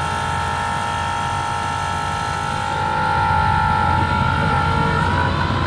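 A 12-volt electric transfer pump whining steadily as it pumps transmission fluid into the pan, over the low steady rumble of the 4.0-litre SOHC V6 idling. The engine is idling to warm the fluid during the 5R55S transmission fill.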